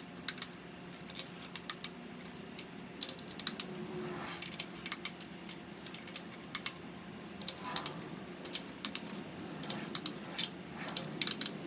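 Ratchet and torque wrench clicking in short irregular runs as the intake manifold bolts on an LS1 are tightened down again in sequence.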